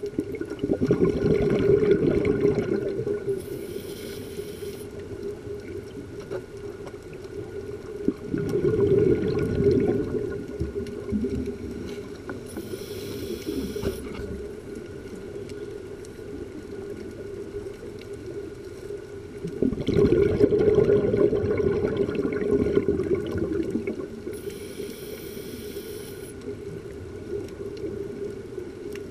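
Scuba diver breathing through a regulator underwater: three long rushes of exhaled bubbles, roughly ten seconds apart, each followed shortly after by a brief high hiss as the diver inhales.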